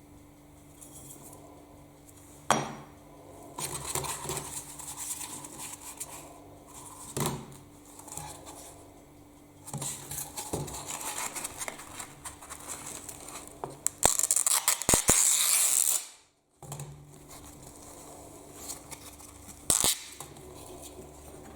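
Metal parts of an old Soviet doorbell being handled and worked with hand tools: scattered clinks and knocks of metal on metal, with about two seconds of harsh, hissy scraping about two-thirds of the way in.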